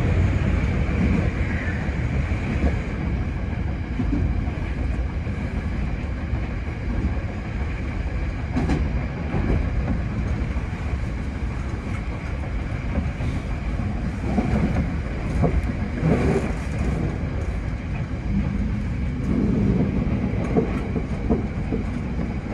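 Hankyu 8000 series electric train running along the line, heard from the driver's cab: a steady rumble of wheels on rail with a steady high hum and scattered clicks over rail joints, swelling louder twice in the second half.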